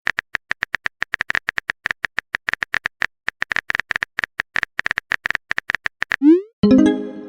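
A rapid, irregular run of short, identical clicks, like a typing sound effect, several a second. Near the end it gives way to a quick rising blip and a short pitched chime, like a message-sent tone.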